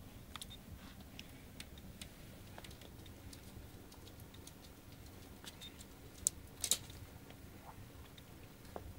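Puppies moving about at a food bowl on a hard floor: scattered small clicks and ticks, with a sharper cluster of clicks about six and a half seconds in.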